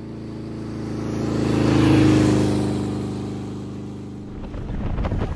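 A motor vehicle's engine running, swelling to its loudest about two seconds in and then fading away, like a pass-by. Music with a beat starts near the end.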